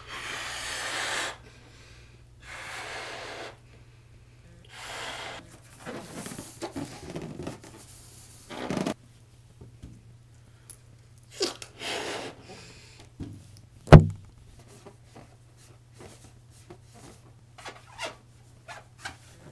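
A person blowing up a rubber balloon: about five breathy blows into it over the first nine seconds, with short pauses between. Later there is a sharp loud thump about fourteen seconds in, then faint rubbing and handling of the balloon.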